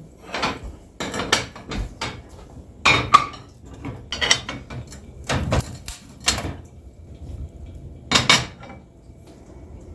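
Snow shovel scraping and knocking in about a dozen short, irregular strokes while snow is being cleared.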